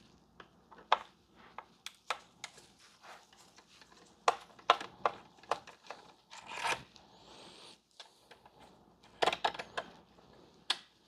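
Irregular small clicks and a few short scraping rustles of hand-tool work on an electronics chassis: a screwdriver and screws being worked and small metal parts being handled.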